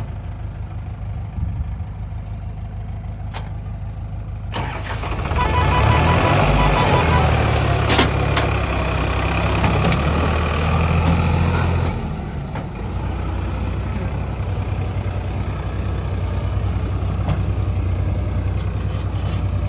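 Diesel engine of heavy machinery running steadily, revving up about four and a half seconds in and held at higher revs until about twelve seconds, then dropping back to a steady lower speed.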